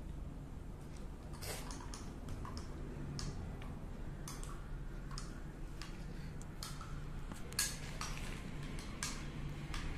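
Irregular small clicks and wet smacks from a baby gnawing on and handling a whole guava, over a steady low hum.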